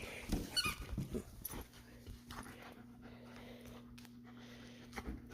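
Belgian Malinois puppy scuffling and panting at play, with a brief high squeal about half a second in. After about two seconds it quietens to a faint steady hum.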